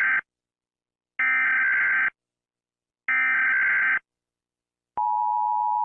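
Emergency Alert System header tones: the tail of one burst of buzzy digital data tones, then two more identical bursts about a second apart. About five seconds in, the steady two-tone attention signal begins, announcing that an emergency message is about to be read.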